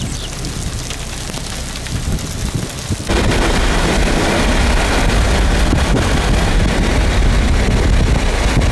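Storm wind rushing over the microphone. It jumps suddenly louder about three seconds in and stays a steady, heavy rumble after that.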